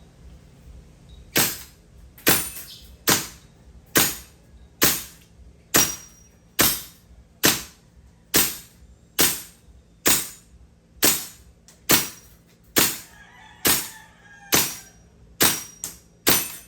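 WE M16A4 gas blowback airsoft rifle firing semi-automatic, a steady string of sharp shots about a second apart, each with the snap of the gas-driven bolt cycling. Two shots come in quick succession near the end.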